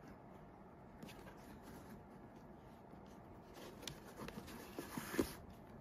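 Quiet rustling of hands sewing crocheted panels together, drawing t-shirt yarn through the stitches with a plastic tapestry needle. A few light clicks and scrapes come in the last two seconds.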